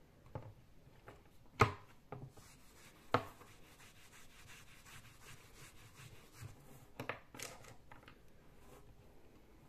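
Handling noises from a small plastic-framed whiteboard and marker on a table: a few sharp knocks and taps, the loudest about one and a half seconds in and another about three seconds in, with soft rubbing between.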